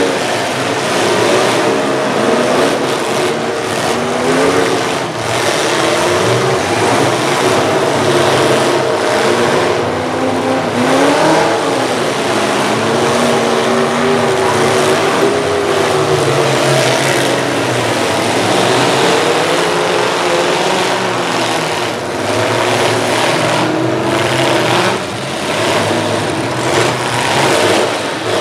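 Several demolition derby full-size pickup truck engines revving at once, their pitches rising and falling as the trucks accelerate and back off. Loud and continuous, with a few short sharp hits mixed in.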